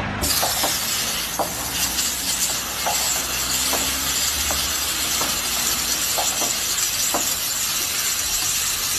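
A steady, loud hiss that starts suddenly just after the start, over a low machine hum, with a few faint ticks.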